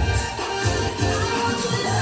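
Electronic dance-pop music with a steady beat; a held bass note comes in near the end.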